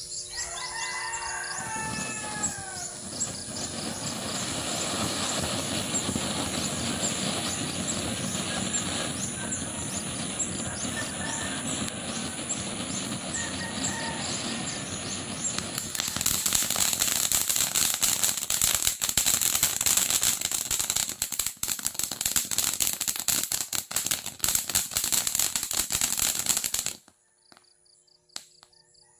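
Small fountain firework burning: a steady hiss that grows louder and crackly about halfway through, then cuts off abruptly near the end.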